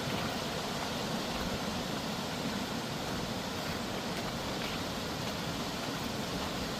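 Steady rush of water from Tumalo Creek, an even noise with no breaks or changes.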